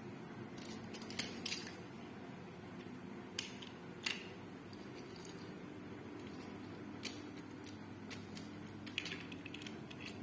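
Scattered light clicks and taps of plastic toy train wagons and a small Thomas engine being picked up and set down on plastic track, over a faint steady background hum.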